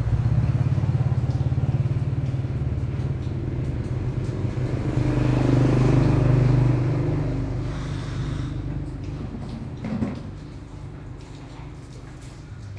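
A motor vehicle engine running steadily with a low, pulsing hum. It grows louder to a peak about halfway through, then fades away toward the end.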